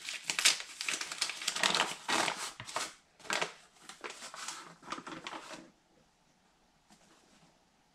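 Paper flour bag crinkling and rustling as it is unfolded and opened by hand, stopping abruptly about six seconds in.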